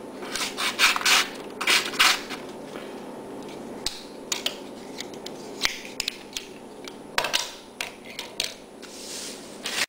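A pocket knife being handled: several short rubbing strokes, then scattered light clicks and knocks, with a few more rubbing sounds about seven seconds in and near the end.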